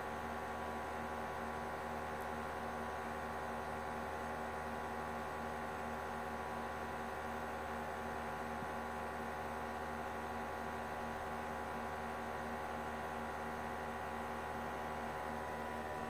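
A small motor running with a steady hum and buzz.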